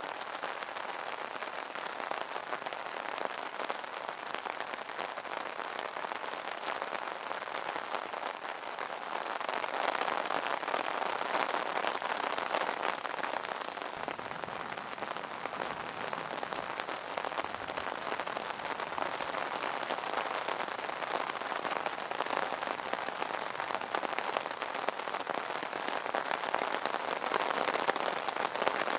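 Rain pattering steadily on an umbrella canopy, a dense spray of fine drop ticks that grows a little heavier about a third of the way in.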